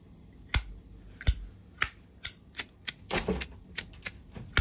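Zippo lighter's hinged metal lid flicked open and snapped shut over and over: a quick, uneven series of about a dozen sharp metallic clicks, several with a bright, brief ring, and a short rasp about three seconds in.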